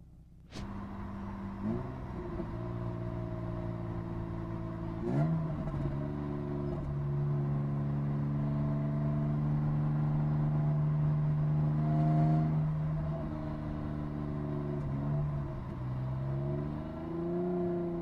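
BMW E36 323i's 2.5-litre inline-six on its stock exhaust, heard from inside the cabin, pulling at about 2,500 to 3,000 rpm. It comes in about half a second in; its pitch steps a couple of times early on, holds steady, then dips and climbs again near the end.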